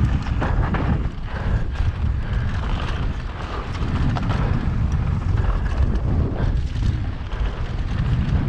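Mountain bike descending a dirt singletrack: wind buffeting the camera microphone over the rumble of the tyres on dirt, with frequent small knocks and rattles from the bike.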